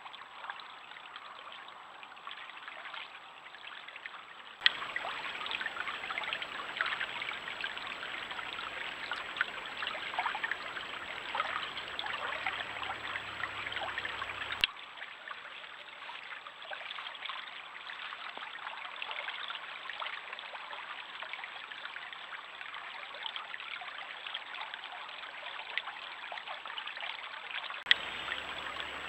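Small shallow stream trickling and babbling steadily over stones, heard through a trail camera's microphone. The level steps up or down abruptly with a click three times where separate recordings are joined.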